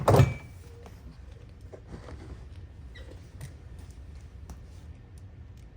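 A loud clunk, then a few light clicks and taps: rack gear being handled and refitted in a rack case.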